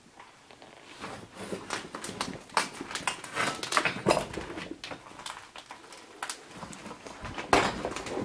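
Footsteps crunching and scraping over debris on a concrete floor, an irregular run of short clicks and knocks that starts about a second in, with a sharper knock near the end.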